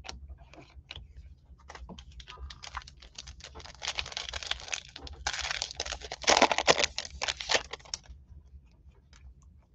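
Foil wrapper of a trading-card pack crinkling and crackling as it is opened, with cards clicking against each other. The crackle grows dense a couple of seconds in and stops about eight seconds in.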